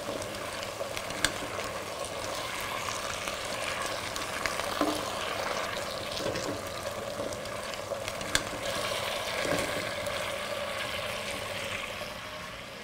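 Chopped peppers, onions and other vegetables sizzling in an enamel pot over a gas burner while a spatula stirs them, with a few sharp clicks of the spatula against the pot.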